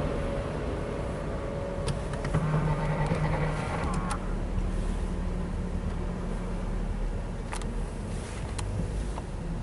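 Car running, heard from inside the cabin: a steady low rumble, with a low hum from about two to seven seconds in and a few light clicks.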